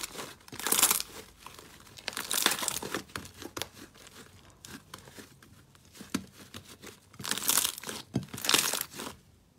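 Thick purple slime being kneaded, stretched and pressed flat against a glass bowl by hand, crackling and popping with many small sticky clicks. There are four louder crackling bursts: about a second in, around two and a half seconds, and twice near the end.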